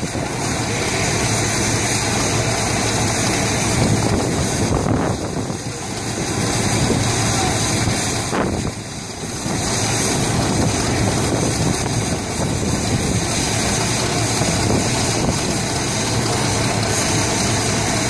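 Vintage steel-wheeled tractor's engine running steadily, dipping briefly in level twice.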